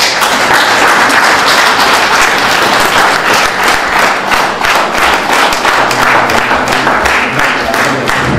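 Audience applauding, a dense steady clapping that starts suddenly right after the closing words of thanks.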